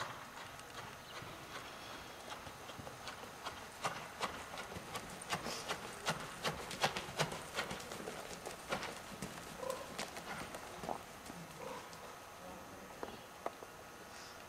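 Hoofbeats of a horse trotting on indoor arena sand footing, a run of dull strikes that grows loudest in the middle as the horse passes close by, then fades again.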